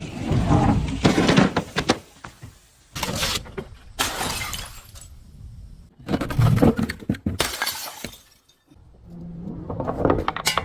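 Glass bottles being crushed and shattering, with dense crunching and crackling in about five separate bursts.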